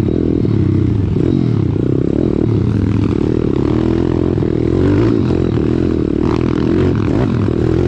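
Pit bike's small single-cylinder four-stroke engine running under load close up from the rider's own bike, its pitch rising and falling with the throttle over a rough dirt trail.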